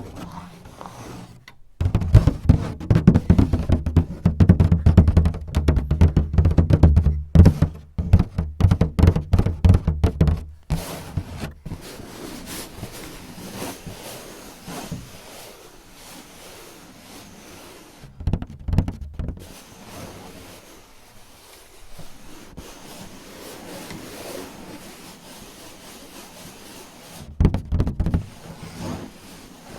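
Fingers tapping rapidly and heavily on a hollow surface for about ten seconds, then softer scratching, with two short bursts of tapping later on.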